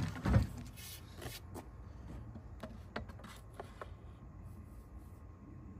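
Wooden stick ramming a tight-fitting potato down a PVC potato-gun barrel: two dull thumps right at the start, then faint, irregular knocks and scrapes as it is pushed down.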